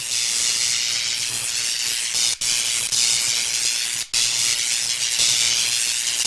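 Steady hissing sound effect with a faint low hum beneath it, broken by two very short dropouts about two and a half and four seconds in.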